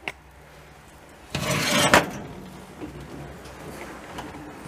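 Metal baking tray scraping as it is slid onto the oven rack, a noisy burst of under a second that ends in a sharp clunk.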